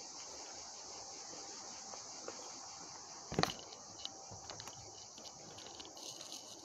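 Steady insect chorus chirring in the background, with a sharp knock about three and a half seconds in and a few light clicks and rustles after it as the phone is handled.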